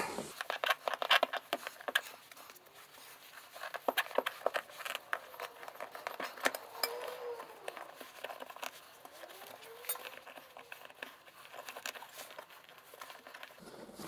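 Gloved hands handling a motorcycle wheel's tyre and inner tube on its alloy rim: scattered light clicks, taps and rubbing, busiest in the first couple of seconds, with two faint drawn-out squeaks around the middle.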